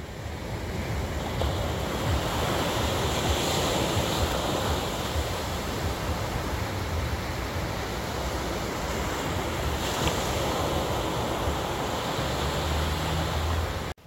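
Small waves breaking and washing up onto a sandy beach: a steady rush of surf and foam.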